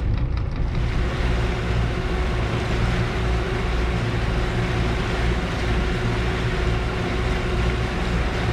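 Catamaran's engines running steadily as the boat motors along, a low even hum, with a steady rushing noise of wind and water coming in about a second in.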